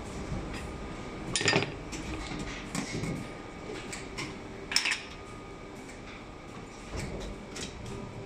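Metal clinks and clacks as USB cable connectors are handled and laid into the steel mould of a vertical plastic injection moulding machine, with two louder clanks about a second and a half in and near five seconds in. A steady machine hum runs underneath.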